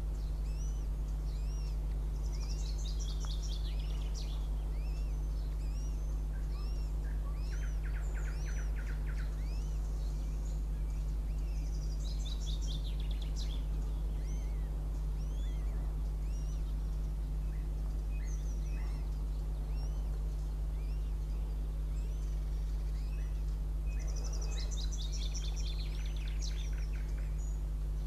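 Small birds singing in the trees around the nest: short high notes repeating throughout, and a descending trilled phrase about three times. Under them runs a steady low hum.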